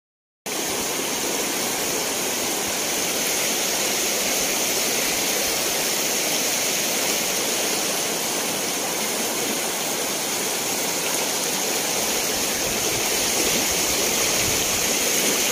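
Steady rush of flowing floodwater, an even unbroken hiss that starts after a half-second gap.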